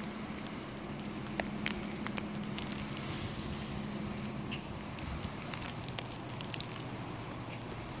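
Falling snow pattering on surfaces: a steady outdoor hiss dotted with many small, irregular ticks, with a faint low hum underneath that fades about halfway through.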